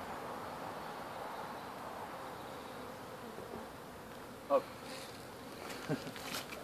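A swarm of honeybees buzzing steadily, with one short, louder pitched sound about four and a half seconds in and a few knocks near the end.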